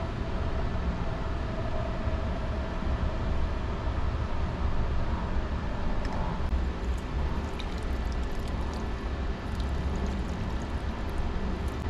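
Steady low rumble and whir of electric fans blowing air inside a parked car, with faint light clicks of wooden chopsticks against a plastic food tray in the second half as yangjangpi is mixed.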